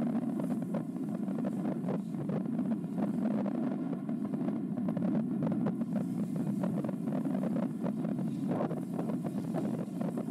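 Wind buffeting the microphone over a steady low rumble, with no pauses or breaks.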